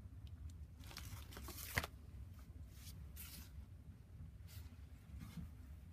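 Paper pages of a handmade collaged journal being handled and turned, rustling in several short bursts, with one sharp tap about two seconds in.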